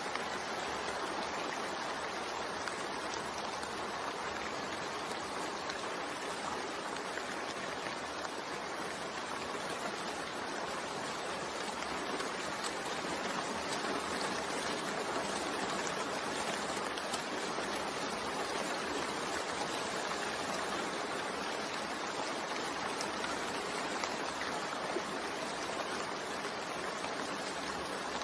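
Steady rain: an even hiss of falling rain with fine drop patter, holding level throughout.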